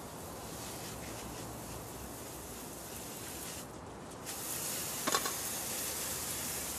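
Steady outdoor hiss. After a cut about four seconds in, the hiss is louder, and a hand tool digging in stony soil gives a short cluster of quick knocks about a second later.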